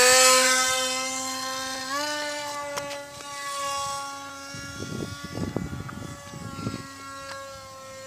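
RC flying wing's motor and pusher propeller running at high throttle on hand launch: a steady whine that steps up a little in pitch about two seconds in, then fades slowly as the plane climbs away. Wind buffets the microphone in the middle.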